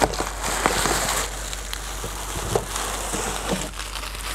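Packaging crinkling and crackling with many small clicks and rustles as a shipping box is unpacked by hand.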